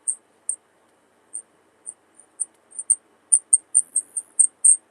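Cricket chirping close by: short, high-pitched chirps at uneven intervals, sparse at first and coming faster and closer together through the second half.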